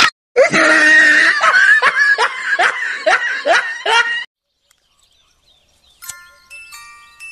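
A person laughing loudly in a quick run of 'ha-ha' syllables that stops abruptly about four seconds in. Near the end a light chiming jingle of bell-like mallet notes begins.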